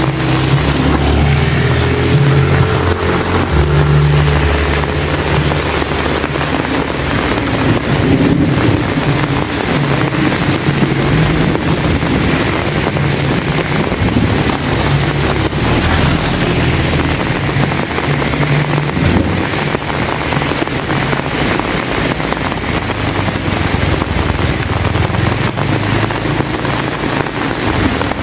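Heavy rain pouring steadily, with a loud low rumble underneath that comes and goes.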